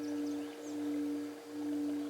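Tibetan singing bowl sustaining a steady low tone with a fainter higher overtone, the sound swelling and fading in a slow pulse a little faster than once a second.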